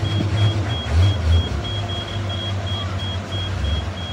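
Heavily loaded truck's diesel engine running with a low rumble that swells and revs up in places, over a fast, steady electronic beeping of about five beeps a second.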